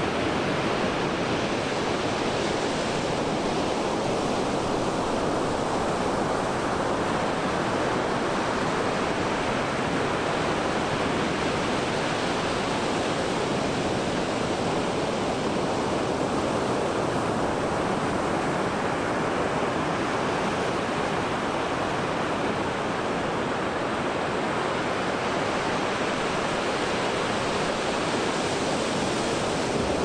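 Pacific Ocean surf breaking and washing up a beach: a continuous rush of waves, swelling and easing slowly in its hiss.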